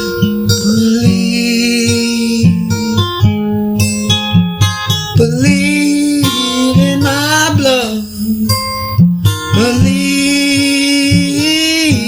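Acoustic guitar strummed in a steady rhythm, with a voice holding two long wordless notes over it, one around the middle and one near the end.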